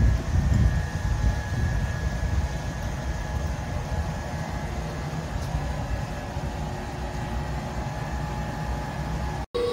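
Railway station platform background noise: a steady low rumble with a few faint steady hums above it, and no train passing. The sound cuts out for an instant near the end.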